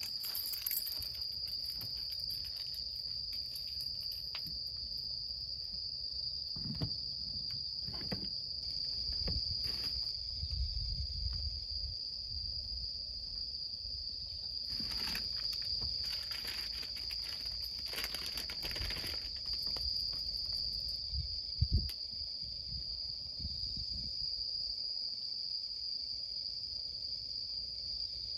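An insect, such as a cricket, trilling continuously on one steady high pitch. Underneath runs a low, uneven outdoor rumble, and there is a single sharp click about two-thirds of the way through.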